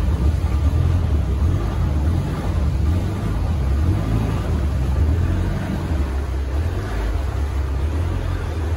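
A small speedboat's engine running steadily as the boat moves along, a low rumble with water and hull noise over it, easing off slightly about six seconds in.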